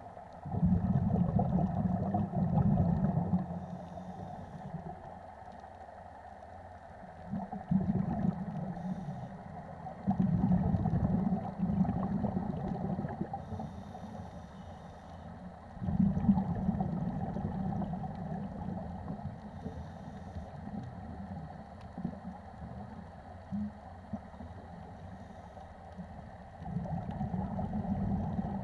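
Scuba diver's regulator breathing heard underwater: a low rumbling gurgle of exhaled bubbles comes in bursts every few seconds, with faint hissing between them.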